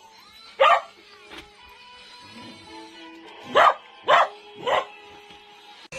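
Electronic Primal Hatch T-Rex toy giving short bark-like baby dinosaur calls from its speaker: one about half a second in, then three in quick succession after about three and a half seconds, with steady electronic tones between them.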